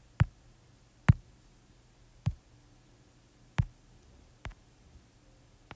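Fingertip taps on an iPad touchscreen: about six short, sharp taps at uneven intervals of roughly one second, over a faint low hum.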